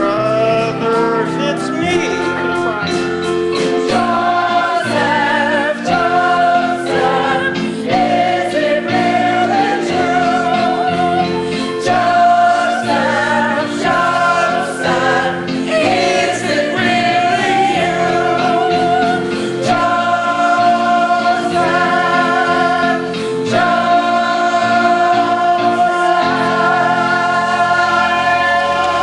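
Live musical theatre song: singers with vibrato over a pit orchestra, the melody moving into long held notes in the later part.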